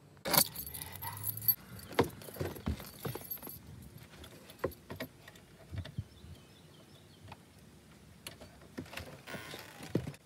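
A ring of keys jangling, with scattered sharp clicks and knocks as the keys are picked up and worked into a door lock. A brief rustling hiss comes near the end as the door is opened.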